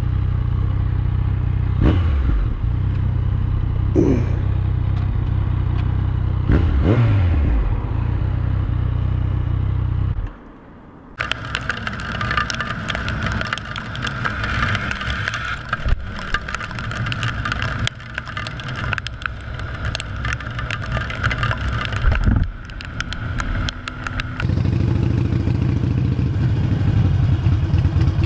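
Onboard motorcycle riding audio. First a motorcycle engine runs with its revs rising and falling a few times. After a brief quieter gap about ten seconds in comes a long stretch of wind and road noise rushing past the microphone with scattered crackles, and near the end another motorcycle engine runs steadily.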